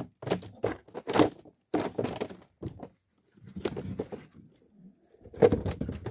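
Irregular knocks, taps and scuffing close to the microphone, from people and gear moving about in a small wooden boat.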